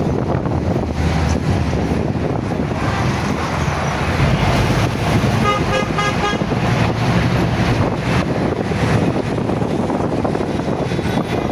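Busy street traffic, vehicles running in a steady din, with a car horn tooting in a quick run of short beeps about halfway through.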